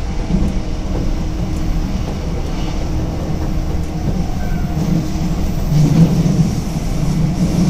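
Running noise of a JR 185-series electric train travelling at speed, heard inside the carriage: a steady rumble of wheels on rail that grows a little louder about six seconds in.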